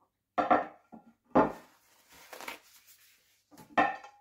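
A hard plastic paint palette being handled and knocked against a wooden tabletop: three sharp knocks, the last near the end, with lighter clatter and rustling between.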